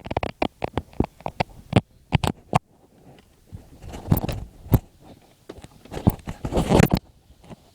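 Irregular sharp clicks and crunching noises, close to the microphone, thick for the first couple of seconds and then coming in scattered bursts.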